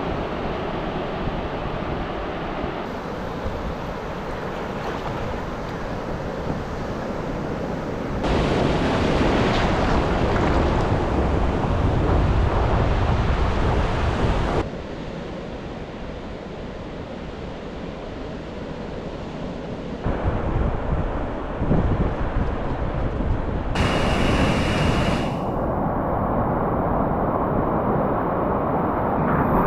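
Ocean surf breaking on a beach, with wind buffeting the microphone; the level jumps abruptly several times, louder from about 8 to 15 seconds in and again after about 20 seconds.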